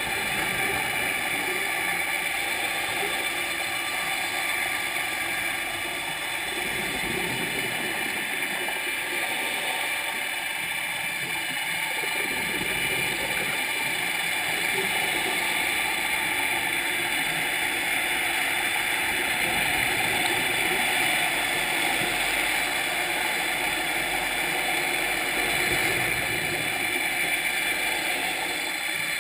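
Steady motor hum of a vessel heard underwater, with several steady tones held throughout and a rushing noise that swells now and then.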